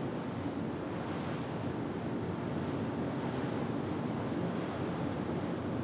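Steady rush of wind and sea, an even noise with no distinct events.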